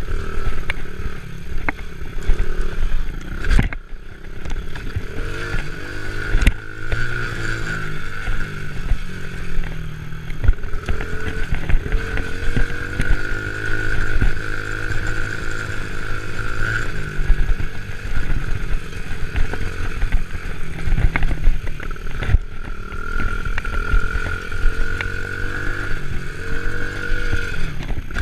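Four-wheeler (ATV) engine running under way, its pitch rising and falling with the throttle, with a few sharp knocks and rattles from the machine over the ground.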